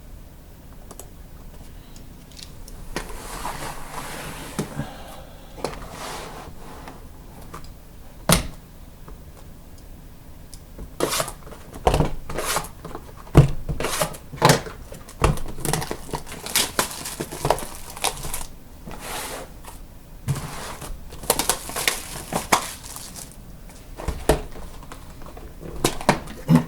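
Sealed trading-card box packaging being torn and crinkled open by hand, with many sharp clicks and knocks of the boxes and wrappers being handled, busiest in the second half.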